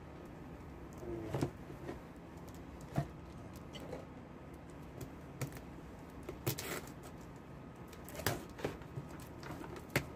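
A cardboard box handled and slit open with a knife: scattered, irregular taps, clicks and scrapes of the blade and cardboard.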